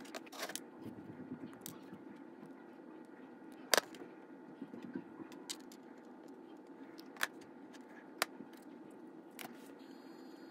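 Scattered small clicks and taps of a model locomotive's motor chassis and its wires being handled, the sharpest click about four seconds in, over a steady low hum.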